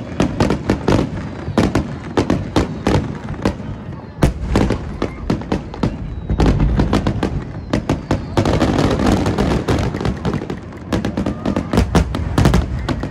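Aerial firework shells bursting in quick succession: rapid sharp bangs and crackles throughout, with deeper booms about four and seven seconds in and a dense run of crackling around nine seconds.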